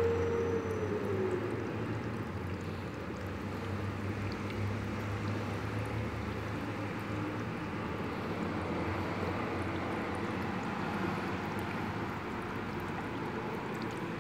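Steady splash of water pouring and running into a shallow fish tub, with a low steady hum in the first half.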